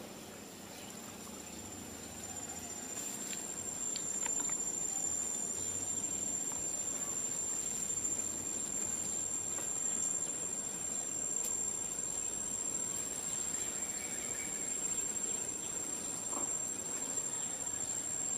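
Insects droning in one steady high-pitched tone, growing louder about three seconds in.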